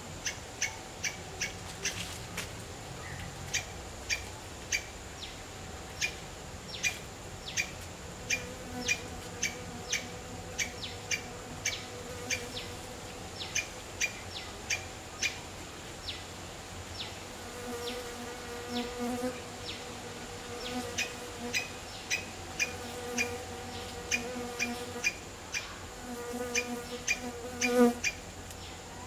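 A flying insect buzzing close by in bouts from a little past halfway, over a steady series of short, high bird chirps repeated about one and a half times a second.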